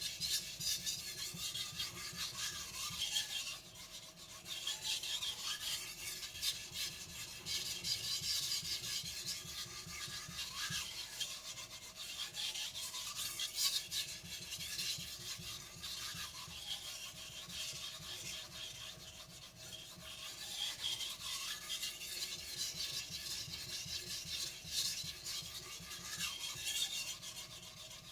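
Carbon steel knife blade stroked back and forth on a wet Naniwa whetstone: a continuous gritty scraping that swells and eases with the strokes.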